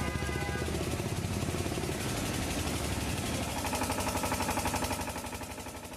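A motor engine running steadily with a fast, even pulsing.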